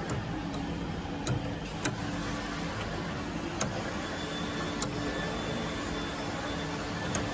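About five short, sharp clicks and clinks, spread out, as a welding cable's twist-lock plug is worked into the output socket on a welding power source's front panel and turned tight. A steady low hum runs underneath.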